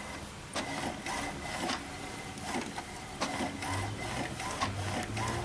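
HP Ink Tank 315 inkjet printer printing a page: its mechanism runs with a string of irregular clicks, and a low motor hum comes and goes in the second half.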